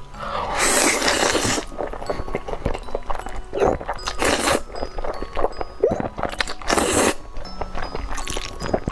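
A person slurping saucy instant noodles, several loud slurps with the longest, about a second, near the start, and wet chewing between them.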